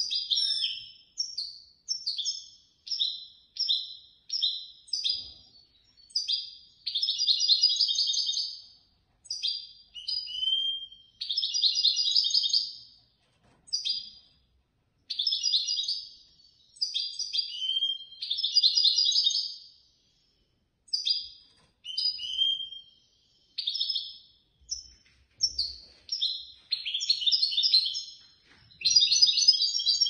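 European goldfinch singing: a string of high, quick twittering phrases broken by short pauses, several of them running on for a second or two as dense trills.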